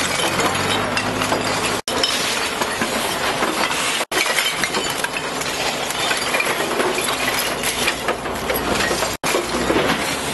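Masses of glass beer bottles clinking and rattling against each other and the road as spilled bottles and plastic crates are handled and scooped up, dense and continuous, with a wheel loader's engine running underneath near the start. The sound drops out abruptly for an instant three times.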